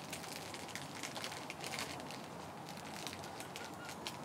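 Outdoor ambience: a steady hiss with many short, irregular high-pitched ticks and chirps scattered through it.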